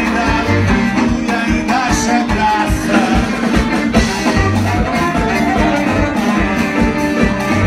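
Live band playing with a steady drum beat: electric guitars, bass and drum kit, with two saxophones playing.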